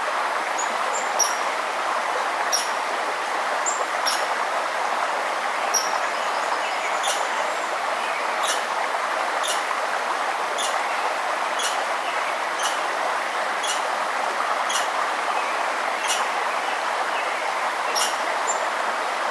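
A river's rushing water, steady throughout, with a small bird repeatedly giving short, sharp chip notes about once every second or so and a few brief high whistles.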